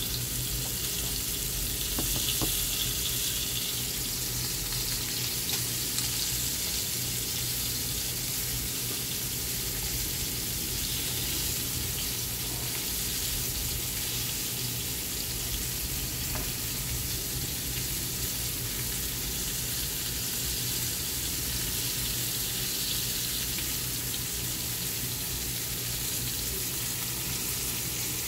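Flour-coated beef cubes frying in hot olive oil in a pot: steady sizzling.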